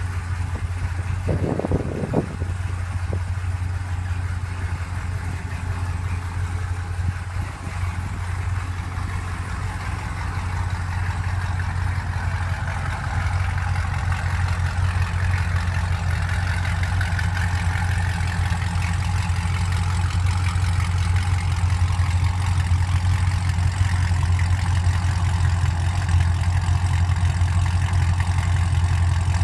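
2010 Camaro SS's 6.2-litre V8 idling steadily through long-tube headers and a Borla ATAK cat-back exhaust, a deep, even idle. There are a couple of brief knocks about two seconds in, and the exhaust note grows a little louder in the second half.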